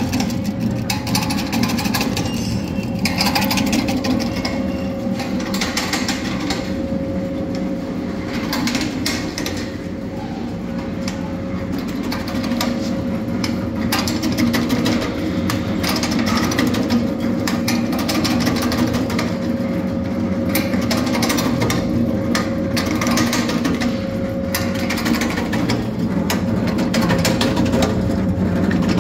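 Nobel motor-driven supari (betel nut) cutting machine running steadily, slicing betel nuts. A steady hum sits under a dense, rapid rattle of clicks from the cutting.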